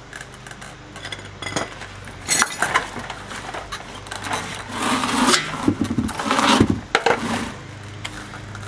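A truck's rear wheel and tire being pulled off the hub studs and set down on the ground: a string of metallic clinks and a few short scrapes.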